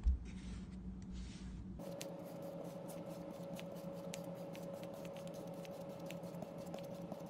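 Kinetic sand being pressed and cut with a round plastic cutter: a soft thump as the cutter goes down, then a run of fine crunchy crackles as the packed sand gives way. A faint steady hum sits underneath.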